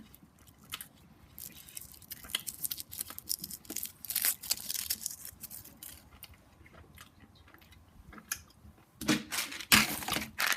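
A person biting and chewing chocolate close to the microphone, with irregular small crackles; it goes quieter near the middle, and there are a few louder noises near the end.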